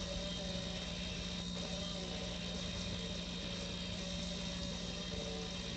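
Steady low hum with an even hiss underneath: constant background drone with no distinct events.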